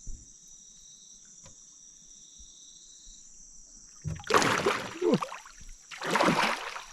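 Crickets or other insects droning steadily at a high, even pitch, then two loud watery swishes of splashing water about four and six seconds in.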